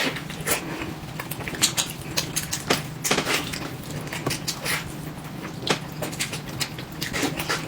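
Eating sounds: irregular smacks and clicks of chewing, picked up close, over a low steady hum.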